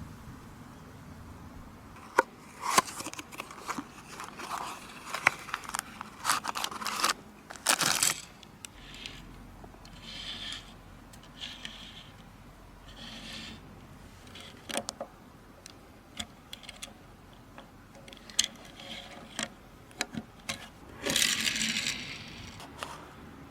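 Hands handling small die-cast toy cars and their cardboard and plastic packaging: irregular scraping, sharp clicks and rustling, with a louder, longer rustle near the end.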